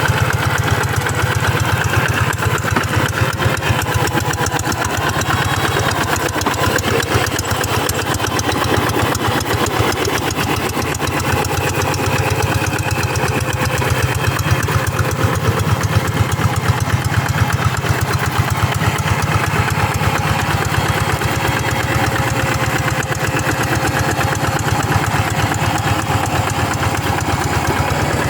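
Engine of a G1000 two-wheel hand tractor running steadily, a fast, even chugging that holds without a break.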